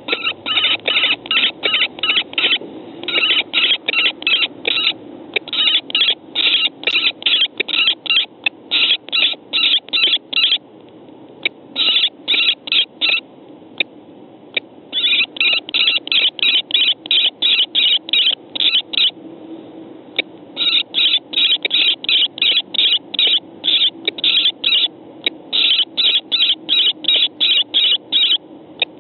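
Female common kestrels calling in rapid runs of sharp, shrill kee-kee notes, about four a second, broken by a few short pauses. The calls are a vocal dispute between two females at the nest box.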